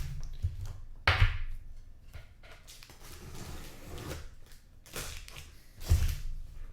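Cardboard case of hobby boxes being handled and opened: several knocks and scraping, rustling noises. The loudest come about a second in and near the end.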